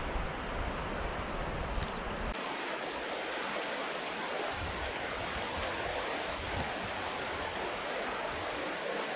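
River water rushing over shallow rapids and rocks: a steady, even hiss. For about the first two seconds wind also rumbles on the microphone, stopping abruptly.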